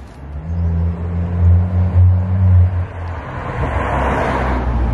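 A motor vehicle close by: a steady low engine hum for the first few seconds, then a rising rush of noise as it passes, loudest about four seconds in.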